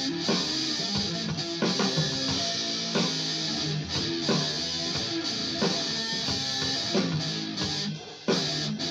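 Electric guitar strumming chords, each strum struck sharply and left to ring, with a short gap near the end before the next hard strum.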